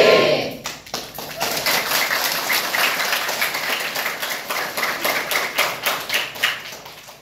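A large crowd of students clapping their hands, with a loud shout at the very start; the clapping dies away near the end.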